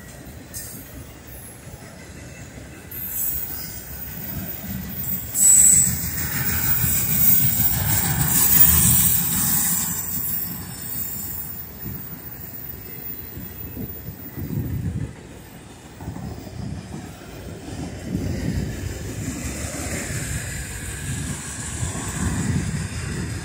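Autorack freight cars rolling past, wheels rumbling on the rails. High-pitched wheel squeal comes in about three seconds in and fades out around eleven seconds, with its sharpest squeal at about five and a half seconds.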